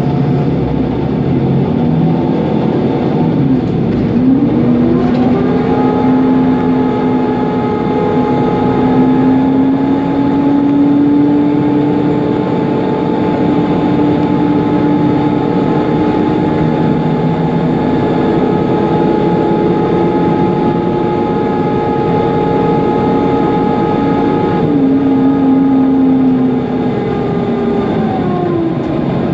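Mercedes-Benz Conecto NGT city bus's thermostatically controlled engine cooling fan: its whine rises in pitch a few seconds in, holds steady, then falls away near the end, over the bus's running engine and road noise.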